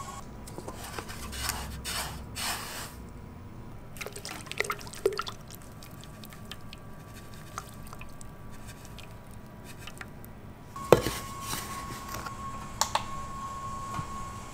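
Liquid pouring and sloshing as ingredients go into a plastic measuring jug, with light clicks of containers being handled and a sharp knock about eleven seconds in. A faint steady high hum runs underneath.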